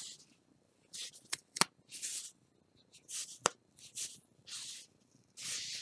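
Paper backing of a flock transfer sheet being slowly peeled off a card: a string of short papery rustles and crackles, with three sharp ticks in the first few seconds.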